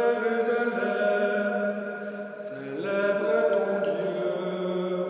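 A man chanting the responsorial psalm of a Catholic Mass in French, slowly and with long held notes.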